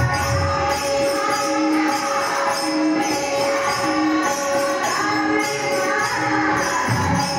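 Instrumental passage of a Marathi devotional song: tabla with jingling percussion under sustained melodic tones, with a short figure repeating about once a second.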